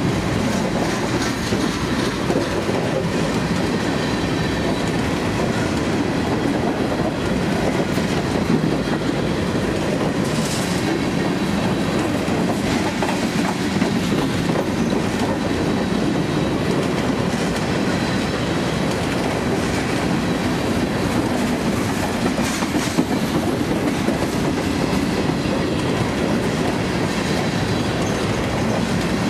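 BNSF freight train of covered hopper cars rolling past at close range: a steady noise of steel wheels running on the rails.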